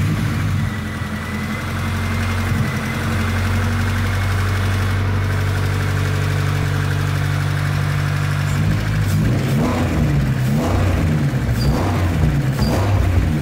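Four-cylinder engine idling steadily, then revved up and down several times from about eight and a half seconds in. A rocker-arm tick can still be heard, a sign that the valve clearance needs adjusting.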